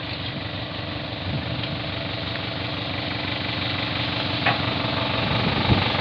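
Dump truck's engine idling steadily, growing slowly louder, with one light knock about two-thirds of the way through.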